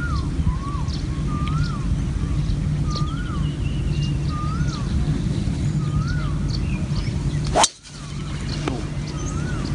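A bird repeats a short whistled note that rises and falls, about once every second, with other birds chirping and trilling over a steady low rumble. About three-quarters of the way through comes a single sharp crack: a driver striking a golf ball off the tee.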